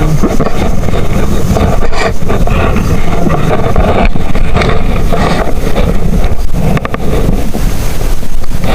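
Strong wind buffeting the microphone at sea: a loud, unsteady rumble, with a few faint knocks about seven seconds in.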